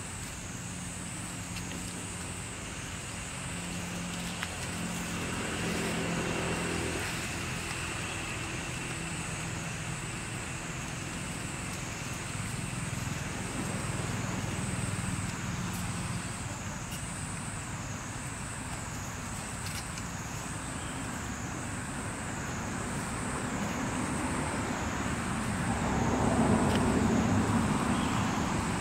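Background road traffic: vehicles passing, swelling and fading about three times, loudest near the end, with a steady wavering high whine running underneath.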